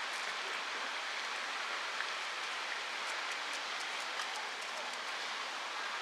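Steady, even outdoor hiss, with a run of faint high-pitched ticks around the middle.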